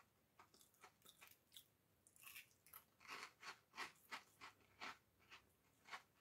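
A mouthful of crunchy Cornados corn snacks being chewed: faint, crisp crunches, coming about three a second and thickest in the middle.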